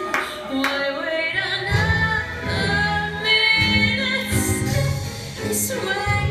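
A solo voice singing a show tune over instrumental accompaniment, with long held notes.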